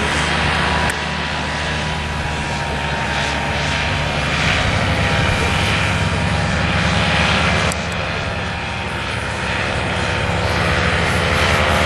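Paramotor engines and propellers running steadily at high power. The sound jumps abruptly in level about a second in and again near eight seconds.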